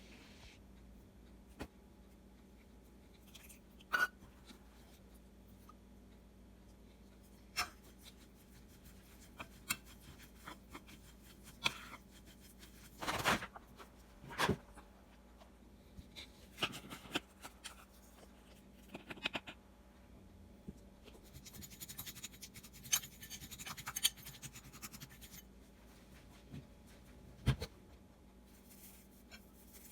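Kitchen handling sounds of food preparation: scattered light taps and clicks, the loudest about a third of the way in, and a few seconds of scratchy rubbing past the middle.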